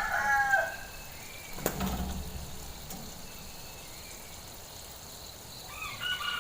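Rooster crowing: the end of one crow fades out about half a second in, and another crow begins near the end. A single sharp knock comes in between.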